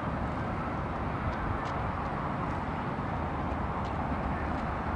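Steady outdoor city ambience: an even low rumble and hiss of distant traffic.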